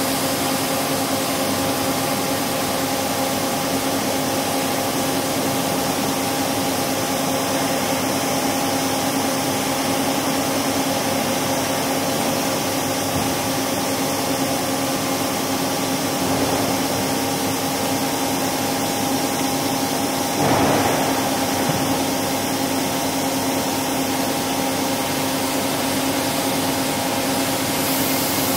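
Steady hum and hiss of running machine-shop equipment, with several constant tones under an even rush of noise. A brief, louder rush of noise about two-thirds of the way through.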